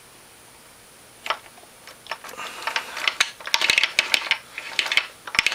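Slack drive chain inside a 2009 Polaris Sportsman 550's opened transmission clicking and rattling against its sprockets as it is worked by hand: a single click about a second in, then a rapid, uneven run of clicks from about two seconds in. The chain has a lot of slack, which the owner takes for the cause of the transmission refusing to turn.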